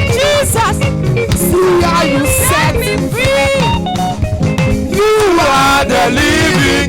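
Live praise-and-worship band music: electric guitar, bass and drum kit, with singing voices gliding over the top.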